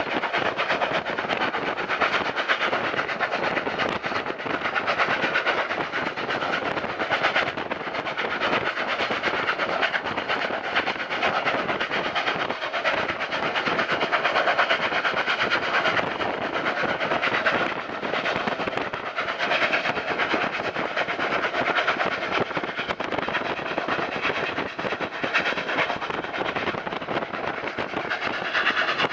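Union Pacific 844, a 4-8-4 steam locomotive, running hard at speed: its exhaust beats come so fast that they run together into a steady chuffing, mixed with the noise of the train on the rails.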